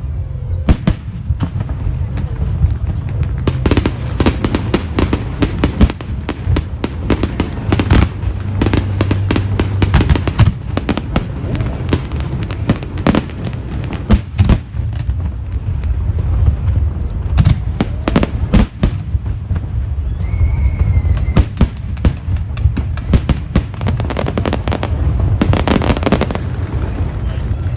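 Aerial fireworks display: a dense run of bangs and crackling bursts, one after another, over a continuous low rumble.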